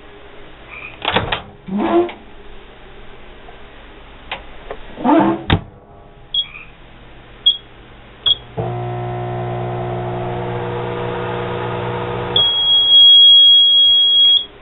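Kenmore microwave oven being handled and started: a few knocks, three short keypad beeps, then the oven running with a steady hum for about four seconds, which cuts off into one long, loud, high beep near the end.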